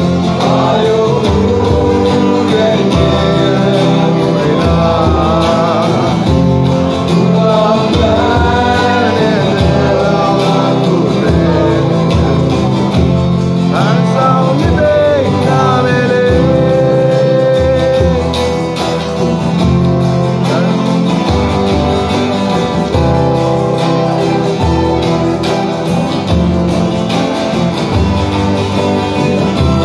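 Live acoustic band playing a Burmese folk song: a man singing over strummed acoustic guitars, with a violin playing along.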